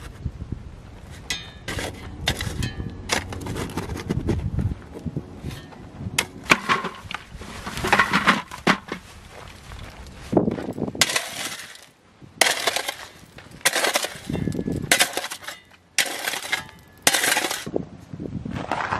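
Shovel scraping and scooping into rocky, gravelly dirt, stones clinking and rattling off the blade, in a series of separate, irregular strokes.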